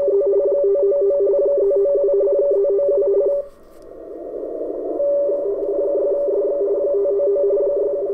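RTTY (radioteletype) signal received on the 40-meter amateur band through a KiwiSDR web receiver: two tones a short step apart alternating rapidly as a station sends its contest exchange. About three and a half seconds in the signal stops, leaving receiver hiss, and about five seconds in another station's RTTY comes in.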